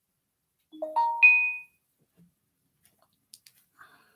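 Electronic notification chime: a quick run of steady tones stepping up in pitch, the highest ringing on briefly, followed by a few faint ticks.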